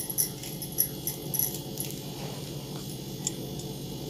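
Plastic craft wire rustling and clicking as it is threaded through a loop and pulled, a few sharp crackles in the first second and a half over a steady low hum.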